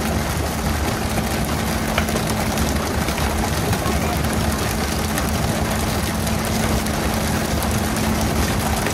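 Fishing boat's engine running with a steady hum under a constant hiss of water spray and sea, with a single knock about two seconds in.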